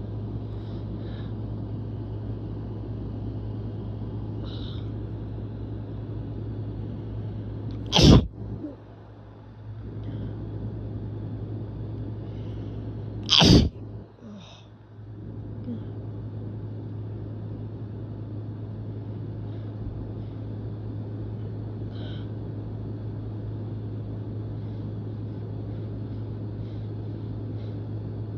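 A person sneezing hard twice, about eight seconds in and again some five seconds later, each a single short, loud burst. A steady low hum runs underneath.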